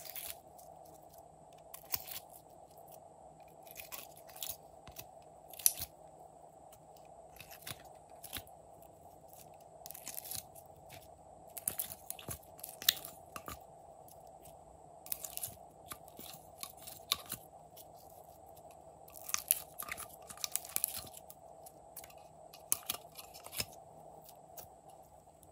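Slime being pried out of plastic palette compartments by fingers and dropped into a dish. It makes irregular sticky crackles and clicks, a few sharper than the rest, over a faint steady hum.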